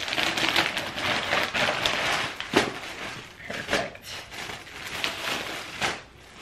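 Thin black plastic mailer bag crinkling and rustling as it is pulled open and handled, with sharp crackles; dense at first, sparser after about two and a half seconds.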